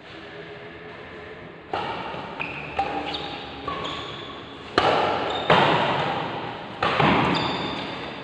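Badminton rally: rackets striking the shuttlecock, a string of sharp hits that echo long in a large hall, the loudest three coming in the second half about a second apart. Short squeaks from shoes on the court come between the hits.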